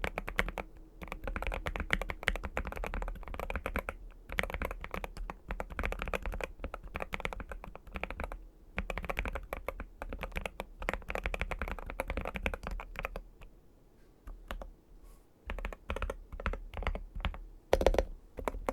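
NuPhy Gem80 mechanical keyboard with Lemon switches, PBT keycaps and an aluminium plate, being typed on in quick bursts of keystrokes with short pauses. The strokes thin out toward the end, with one louder stroke shortly before the end.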